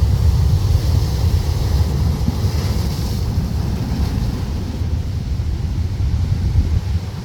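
Typhoon wind buffeting the microphone in a steady low rumble, over the hiss of ocean surf breaking on a boulder beach.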